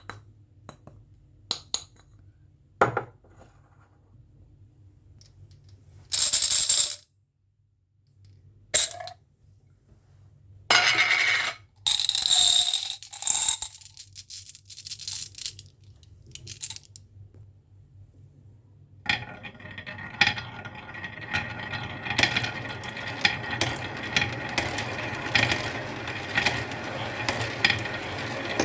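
Marbles clicking and clattering down a marble run: single clicks and a few short loud cascades at first, then from about two-thirds of the way through, many marbles rattling along the track together in a dense, continuous clatter that grows louder.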